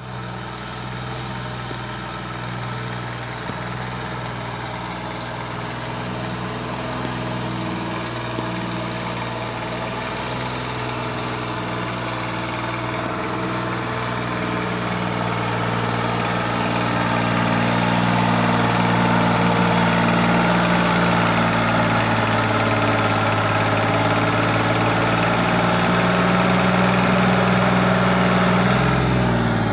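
Farm tractor's diesel engine running steadily under load as it tows a trailer loaded with logs over rough dirt. It grows louder through the first half as the tractor comes closer, then holds steady.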